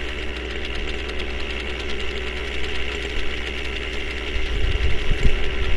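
RC model helicopter's small engine idling steadily on the ground, with some low buffeting near the end.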